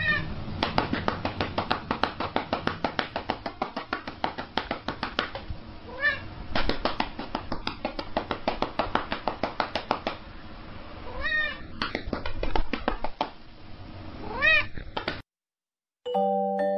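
A cat meowing several times, each call rising and falling in pitch. A fast run of short clicks, about seven a second, goes on through much of it. The sound stops abruptly near the end.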